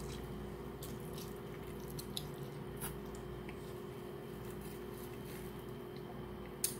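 A person biting into and chewing a slice of meat-loaded pizza: faint wet mouth sounds with a few small clicks, over a steady low hum. A sharper click comes just before the end.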